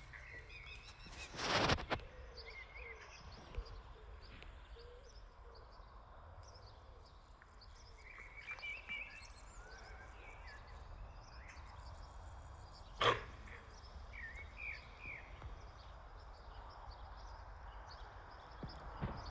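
Small birds chirping and calling on and off. A loud rustling burst about a second and a half in and a sharp click about thirteen seconds in.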